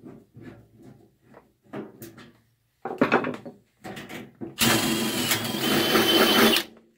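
Light knocks and metal clatter, then a power tool runs steadily for about two seconds near the end, the loudest sound here.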